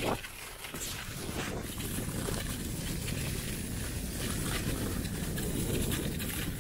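A sledge running fast over packed snow: the runners make a steady, rough rushing and scraping noise, with one knock right at the start.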